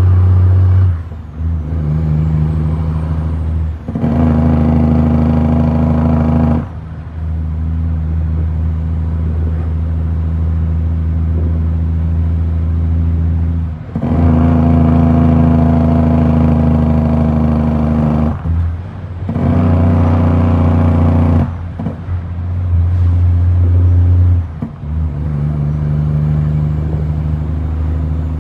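Heavy diesel truck engine heard from inside the cab, pulling under load. About seven times the sound drops away briefly and comes back at a different engine note as the driver shifts gears.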